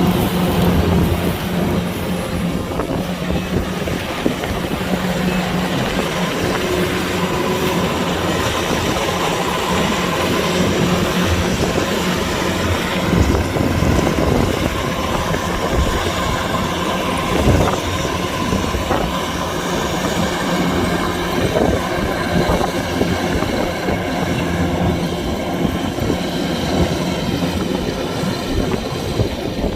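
Kubota DC-105X rice combine harvester working, its engine and threshing machinery running steadily with a constant low hum.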